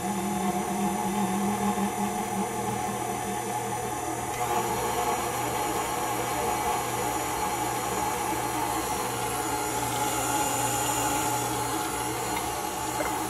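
KitchenAid Artisan stand mixer running steadily with a motor hum and whine, its beater mixing muffin batter.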